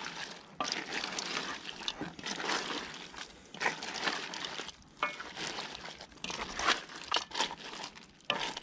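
A wooden spoon stirring a large stainless-steel pot of whole crayfish in tomato sauce. The shells shift with an irregular crunching and rustling, broken by sharp little knocks.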